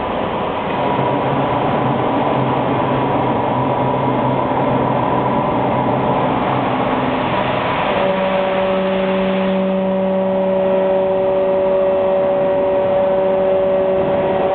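Motors of an autoclaved aerated concrete (AAC) block cutting machine running, a steady mechanical hum and whine. About eight seconds in, the hum changes to a lower, steadier tone.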